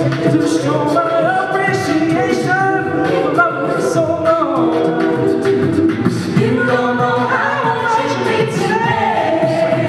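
A mixed group of men and women singing a cappella in close harmony into handheld microphones, several voices holding and moving chords together.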